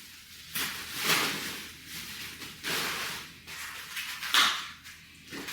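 Plastic packaging rustling and fan parts being handled, in a run of short swishes, with a sharper knock a little over four seconds in.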